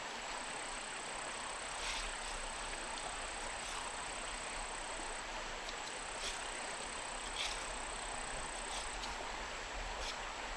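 Steady rain falling, an even hiss with a few sharper drops tapping now and then.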